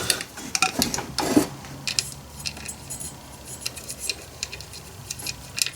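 Small metal chainsaw parts and tools being handled on a workbench: irregular light clicks and clinks, with a louder knock about a second and a half in.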